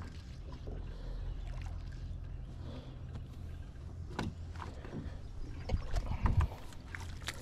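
A hooked fish splashing at the surface beside an aluminum boat. There are scattered knocks, and a louder cluster of splashes and thumps about six seconds in, over a steady low hum.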